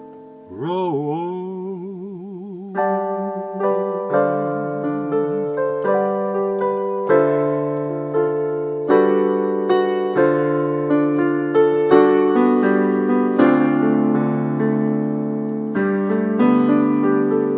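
Electronic keyboard on a piano sound playing the slow instrumental ending of a ballad, with chords struck roughly once a second. A note that slides up and wavers comes in about half a second in, before the chords begin.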